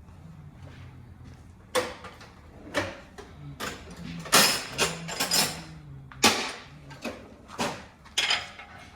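Repeated sharp knocks and clanks, about nine of them at uneven intervals, over a low steady hum: the sounds of work in a car repair shop.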